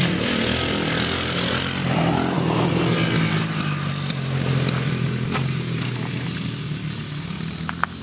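Small off-road vehicle engine running steadily, growing gradually fainter toward the end. A couple of sharp ticks come just before the end.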